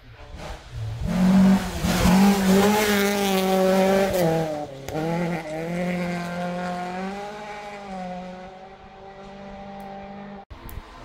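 Rally car engine at high revs passing on a gravel stage, with the rush of tyres and gravel while it is closest. The note dips briefly about halfway, then holds steady as the car draws away and fades.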